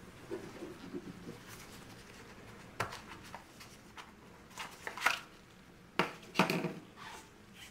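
Gloved fingers handling an AirPods Pro charging case and its cardboard box insert: soft rubbing, then a series of sharp taps, clicks and knocks, the loudest near the end.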